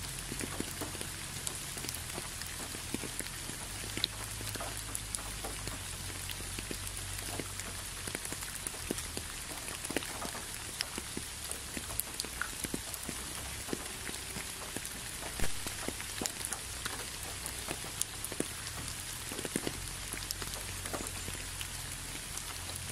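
Steady rainfall, with many separate drops ticking close by among the patter; one drop lands louder about two-thirds of the way through.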